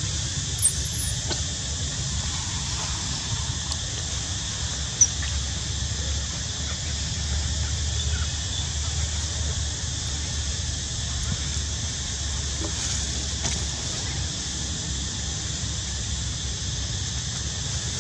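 Steady outdoor background: a low rumble under a constant high hiss. A brief, very high-pitched falling squeak comes near the start, and a single sharp click about five seconds in.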